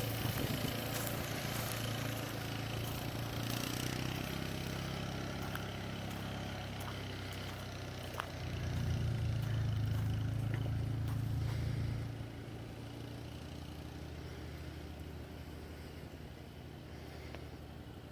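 Vehicle engine running steadily, growing louder for a few seconds in the middle as it pulls away, then settling back to a quieter hum.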